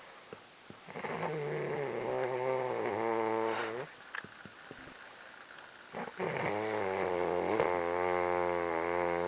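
A person snoring: two long, buzzing snores of about three seconds each with a wavering pitch, the first starting about a second in and the second about six seconds in.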